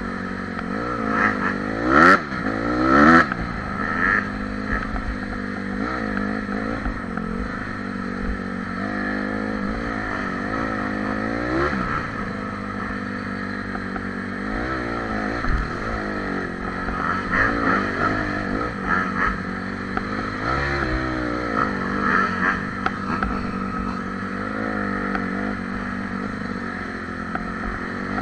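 Dirt bike engine running under way, its pitch rising and falling as the throttle is opened and closed, with two sharp revs about two and three seconds in being the loudest.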